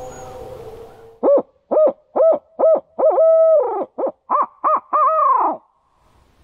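Owl hooting in the barred owl's 'who-cooks-for-you, who-cooks-for-you-all' pattern: two phrases of short hoots, each ending in a longer note, the last one trailing downward.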